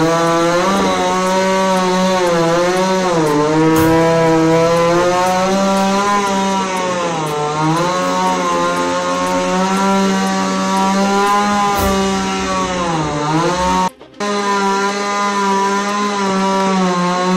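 Chainsaw running at high speed while cutting through a fallen tree trunk. Its pitch sags four times as the chain bites into the wood and bogs down under load. The sound breaks off for a moment about three-quarters of the way through.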